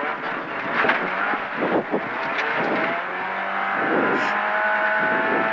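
Ford Fiesta rally car's engine heard from inside the cabin. It runs in uneven surges with short breaks for the first couple of seconds through a slow right hairpin, then settles into a steady pull with the revs rising slowly as the car accelerates out.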